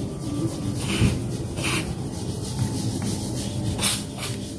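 WD-40 aerosol can spraying through its straw into a laptop hinge in four short hissing bursts, with low handling and rubbing noise underneath. The lubricant is meant to free a stiff, rust-prone hinge so the lid opens easily.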